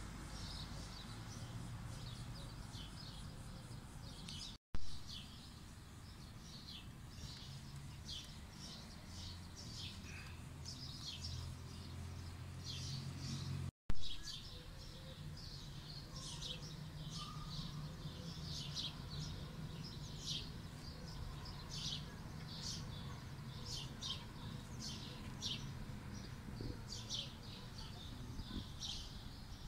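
Small birds chirping, short high chirps repeated about once or twice a second, over a faint low rumble. Twice, about 5 and 14 seconds in, the sound drops out for an instant and comes back with a brief thump.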